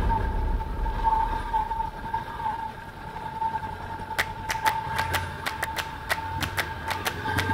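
Honda CB500X motorcycle engine running at low revs with a steady whine. About halfway through, a run of quick, irregular clicks starts, roughly four or five a second.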